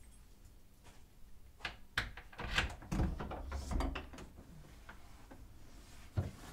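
Someone working a front door's lock from outside: a cluster of clicks, knocks and rattles, then a single sharp click near the end.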